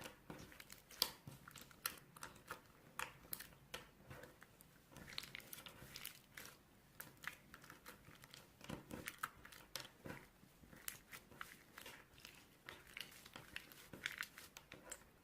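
Faint, rapid, irregular crinkling and crackling clicks, like something being crumpled or handled up close.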